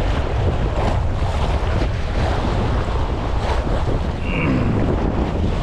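Wind buffeting the microphone over sea waves washing and splashing against a rock breakwater, a steady rushing noise with a heavy low rumble.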